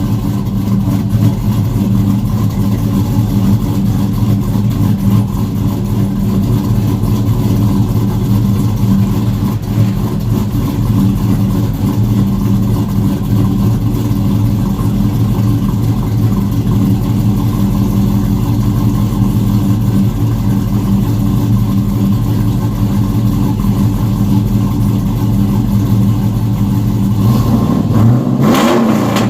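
2007 Chevrolet Avalanche's V8 idling steadily, warming up after a cold start, with a short rev that rises and falls near the end.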